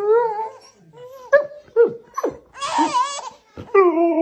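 A baby giggling while a dog tickles him: long wavering squeals at the start and near the end, with short falling laughs and a breathy burst of laughter in between.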